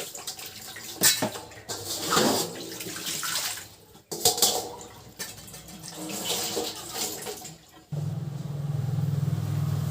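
Running water splashing in uneven surges as fish are washed and cleaned. About eight seconds in, a steady low hum starts.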